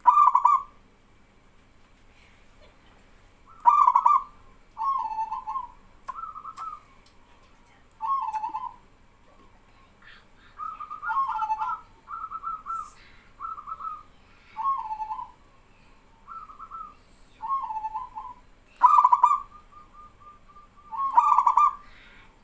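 Zebra doves (perkutut) cooing in turn: short, rolling coo phrases repeated every second or two. A louder bird's calls near the start and near the end are answered by softer ones at slightly different pitches.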